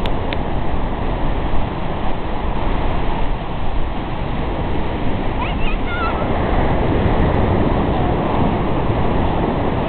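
Steady ocean surf washing onto the beach, mixed with wind noise on the microphone. A few short high squeals come about halfway through.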